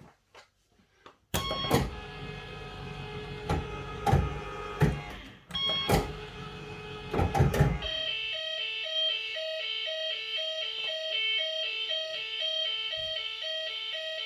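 Bellfruit Firecracker fruit machine reels spinning twice, each spin ending in a series of clunks as the reels stop. Then, about eight seconds in, the machine starts a steady, repeating electronic bleeping tune.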